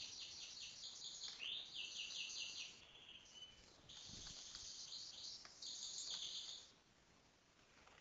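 A songbird singing high, fast phrases of quickly repeated chirping notes. It sings three phrases, with a pause of about a second after the first, and stops shortly before the end.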